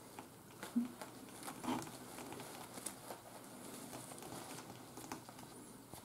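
Faint rustling with a few soft ticks as a marsh harrier is held in the hands and its wing spread, feathers and clothing brushing together.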